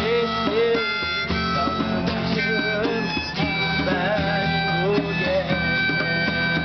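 Harmonica playing a wailing melody of held and bent notes over guitar accompaniment, a bluesy instrumental fill.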